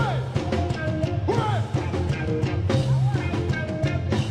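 Live ska-rock band playing full out with a steady driving beat: drums, bass and guitar, with a few gliding pitched notes on top.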